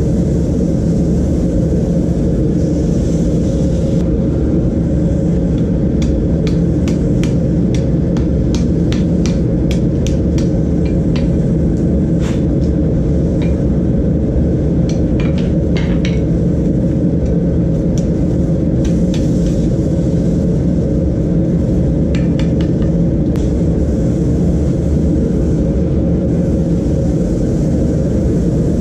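Steady roar of a homemade propane forge's burner, with a scattering of light taps and clicks through the middle as the red-hot lawnmower blade is worked at the anvil.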